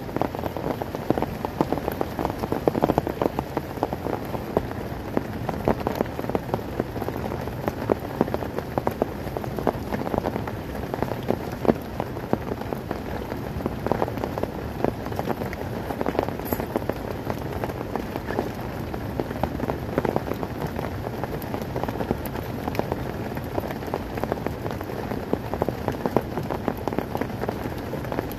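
Heavy rain falling steadily, with many sharp drop hits on a tarp overhead.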